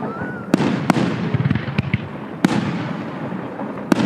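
Fireworks going off: several sharp, loud bangs of aerial shells, each with an echoing tail, over continuous crackling, with a short whistle near the start.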